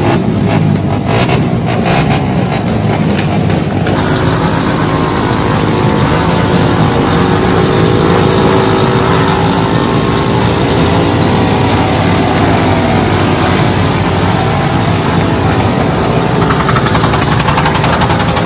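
Many motorcycle and scooter engines being revved hard at once, a loud continuous din. About four seconds in it turns denser and steadier, with engines held at high revs.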